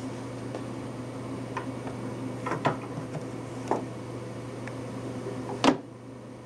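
Light knocks and clicks of books and a wooden bookcase being handled as a book is reached for, several scattered hits with the sharpest near the end, over a steady low hum.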